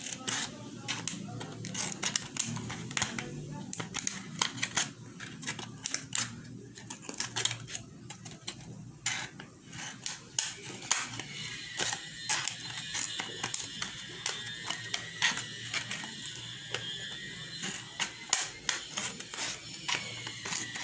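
Scissors snipping through a thin clear plastic soft-drink bottle, cutting a shaped edge in many quick, irregular snips, each a sharp click.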